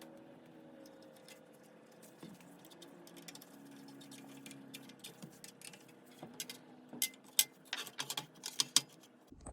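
Fast-forwarded clicking and clinking of screws and a screwdriver being worked into the espresso machine's metal housing during reassembly. The clicks get denser and sharper near the end, over a faint steady hum.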